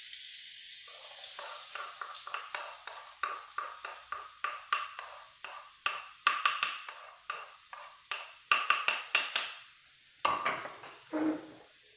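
Wooden spatula scraping and knocking against a metal wok as fried rice is stirred and tossed: a quick, uneven run of strokes, several a second, each with a short ring from the wok.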